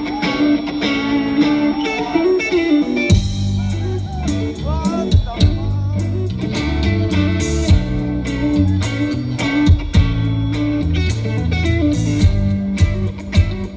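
Live rock band with electric guitars, heard through a phone in the audience. An electric guitar plays a sustained line at first, and the bass and drums come in heavily about three seconds in.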